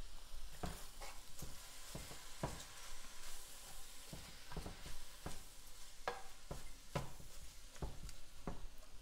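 Cabbage sizzling faintly in a skillet on the stove while it is stirred, with irregular knocks and scrapes of the stirring utensil against the pan a little more than once a second.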